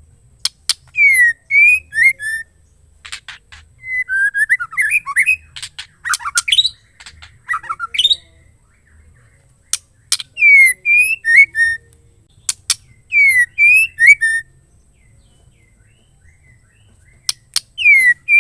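Female white-rumped shama calling in short repeated phrases, each a quick run of sharp high clicks followed by a few slurred whistled notes. The phrases come about five times with pauses between, and one longer, more jumbled outburst falls in the first half.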